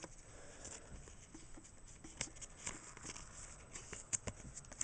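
Faint plastic rustling and scattered light clicks from trading cards being handled in thin clear plastic card sleeves.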